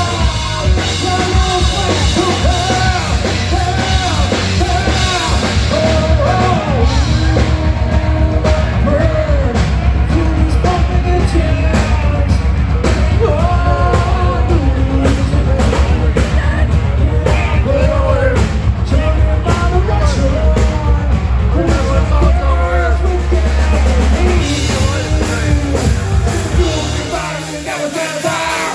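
Live rock band playing: a singer over drum kit and heavy bass, continuous and loud. The bass and drums drop away near the end.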